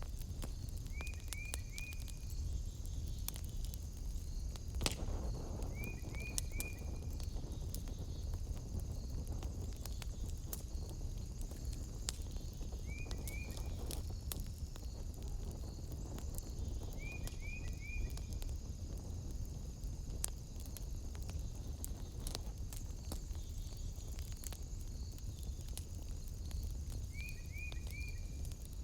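Wood fire crackling in a fireplace, with scattered sharp pops over a low rumble. Behind it runs a steady high chirring of night insects, and every four or five seconds an animal gives a short run of three quick high chirps.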